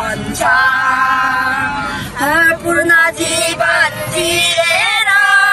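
A song with sung vocals, the voice holding long notes with slight wavering.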